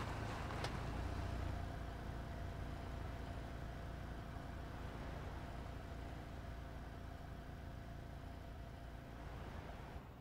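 Cars driving past on a road: a steady low rumble, loudest in the first two seconds and slowly fading.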